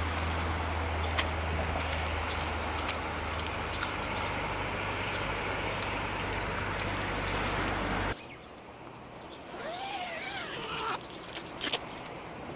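Steady outdoor rushing noise with a low hum underneath, which cuts off abruptly about eight seconds in. A quieter outdoor background follows, with a bird calling in short rising and falling chirps and a few sharp clicks.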